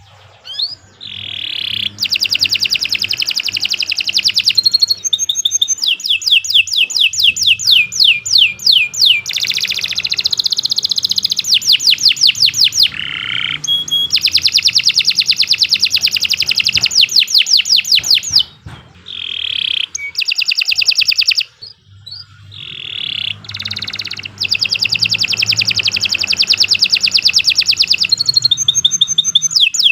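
Domestic canary singing a long, energetic song of rapid trills and fast repeated chirps, with only brief pauses.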